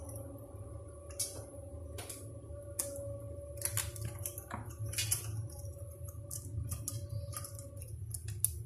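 Scattered light clicks and taps of a plastic toilet seat and its hinge brackets being handled and set into position on a ceramic toilet bowl.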